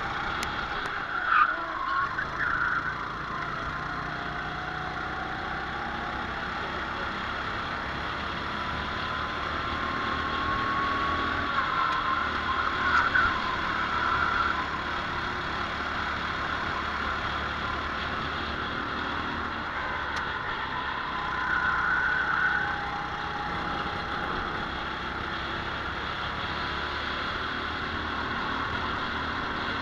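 Racing kart engine running at race pace, heard from the kart's own onboard camera, its pitch climbing as the kart accelerates and dropping as it slows for corners, with a few brief louder surges.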